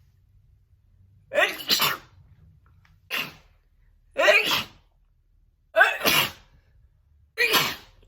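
A woman sneezing over and over in a sneezing fit, about five sneezes roughly a second and a half apart, each a sharp, loud burst.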